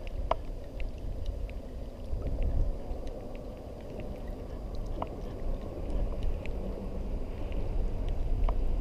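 Wind rumbling on the microphone, with faint scattered clicks and three short falling squeaks: one just after the start, one about five seconds in and one near the end.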